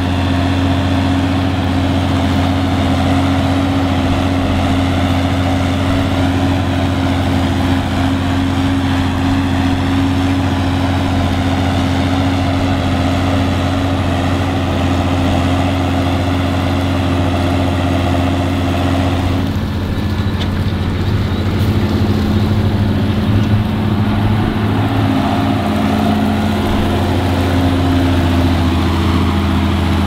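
John Deere 7530 tractor's diesel engine running steadily under load while pulling a mounted reversible plough through stubble, holding an even pitch, with a slight change in its sound about two-thirds of the way through.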